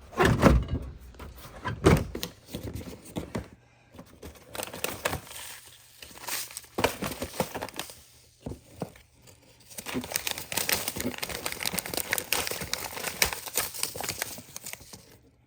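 Crinkling and rustling, with two heavy knocks in the first two seconds and denser crackling in the second half.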